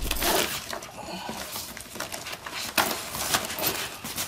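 Paper rustling and shuffling as sheets and folders are leafed through in a box, with irregular short scrapes and taps.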